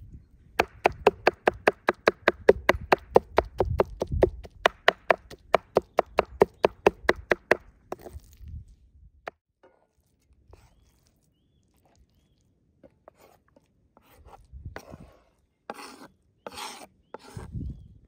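Kitchen knife rapidly chopping soft eggplant flesh on a wooden cutting board, about five even strokes a second for roughly seven seconds, then stopping. A few scattered knocks follow near the end.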